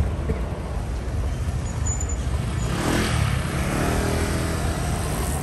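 Street traffic: a motor vehicle passes about three seconds in, and its engine note climbs briefly as it pulls away, over a steady low rumble.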